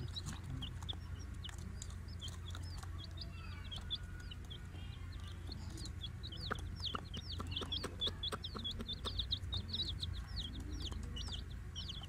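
Young chicks peeping: a quick string of short, high cheeps, each falling in pitch, that grows busier and more continuous in the second half, over a steady low rumble.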